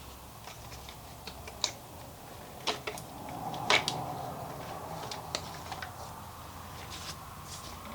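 Irregular light clicks and knocks of motorcycle engine parts and wiring being handled and worked loose by hand, about ten in all, the loudest a few seconds in.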